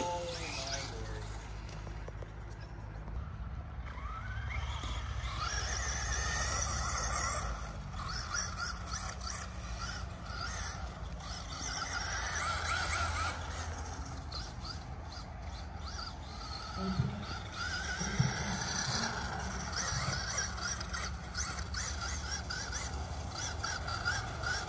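Electric RC car's motor whining, the pitch rising and falling again and again as the car speeds up and slows down while it laps a loose dirt track.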